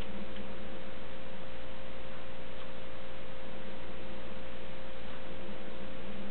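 Steady hiss with a constant high-pitched hum tone and a low hum underneath, unchanging throughout, with one or two faint ticks.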